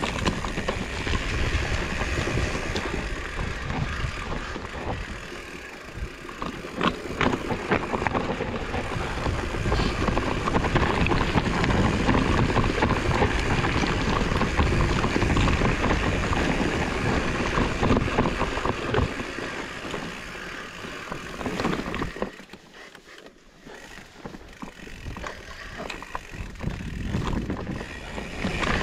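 Fat-tyre mountain bike ridden over rough trail: tyre rumble and wind on the microphone, with frequent rattling clicks from the bike. It goes quieter for a couple of seconds about three quarters of the way through.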